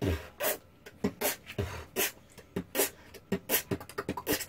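Beginner beatboxing with one hand cupped over the mouth: a steady rhythm of mouth-made bass-drum thumps and crisp hissing drum hits, about three or four a second, quickening into a rapid run near the end.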